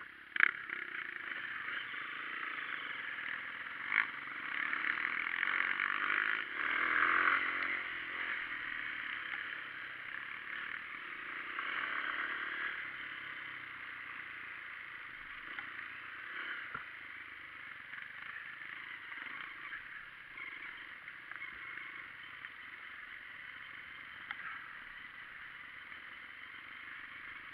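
Dirt bike engine running while riding a rough off-road trail, heard muffled, louder between about four and eight seconds in and then steadier. A couple of sharp knocks cut through near the start and about four seconds in.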